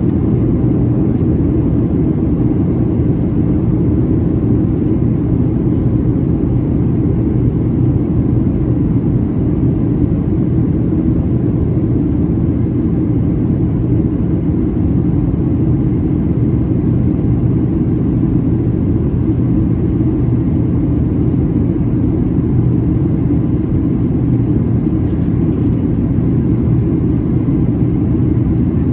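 Steady low rumble of engine and airflow noise inside the cabin of a Boeing 737-700 during its descent. The engines are CFM56-7B turbofans.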